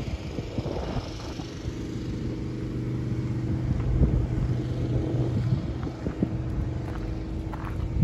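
Steady engine hum from site machinery or a vehicle, with wind buffeting the microphone and a few soft knocks.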